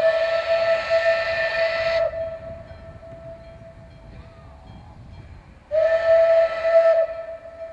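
Steam locomotive's whistle blown twice from the approaching train: a long steady blast of about two seconds, then after a pause of about three and a half seconds a second, shorter blast.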